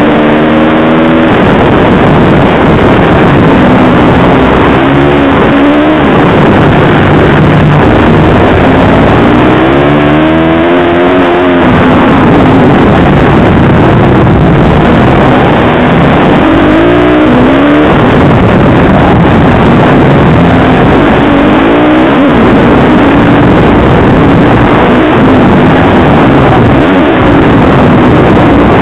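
Supermoto race motorcycle engine heard from the rider's helmet, revving hard and climbing in pitch through the gears again and again, with dense noise over it throughout.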